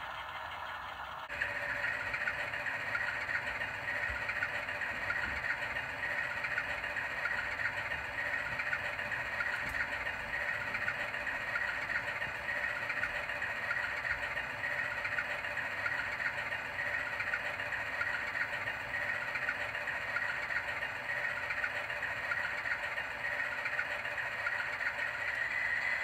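Model diesel locomotive's onboard sound system playing a steady engine idle. About a second in it switches to a second model's idle, a little louder, with a steady high hum running through it.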